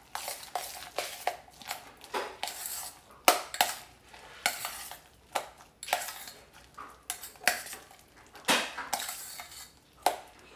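Metal utensil scraping and clinking against a stainless steel mixing bowl in quick, irregular strokes, stirring finely shredded cabbage into a thick cream-and-mayonnaise dressing.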